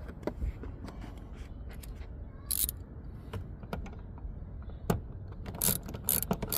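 Small metal clicks and a short scrape as a trim screw held in a 10 mm socket is fitted back into a car door panel, with a quick run of clicks near the end.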